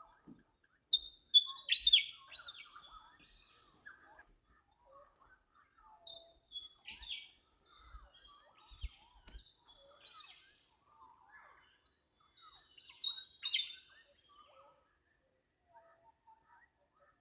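Small songbirds chirping and singing in three short bursts of high, quick notes spaced several seconds apart, with softer, lower calls scattered between them.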